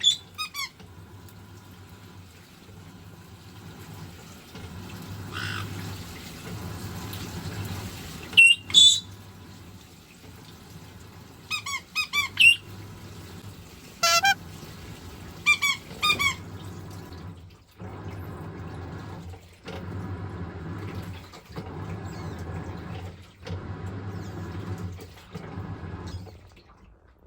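Washing machine running with water pouring in, a steady hum with rushing water; in the second half it cycles in pulses of about two seconds with short gaps, like the drum agitating back and forth. Over it a white-bellied caique gives several short, loud, shrill squawks in clusters.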